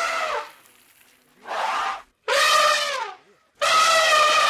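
An animal calling over and over: four loud, drawn-out, pitched calls, each up to about a second long, with short gaps between them.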